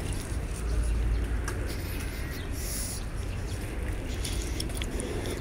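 Outdoor ambience: a low rumble on the microphone about a second in, scattered light ticks, and a brief high chirp, then a short hiss, between two and three seconds in.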